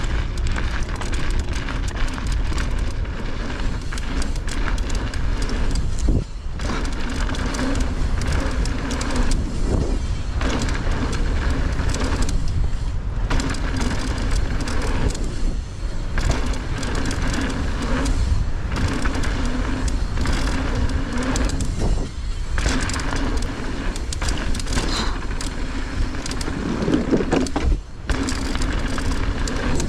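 Mountain bike rolling fast along a dirt trail: steady tyre and wind noise with knocks and rattles from the bike over bumps, and a low hum that comes and goes with speed.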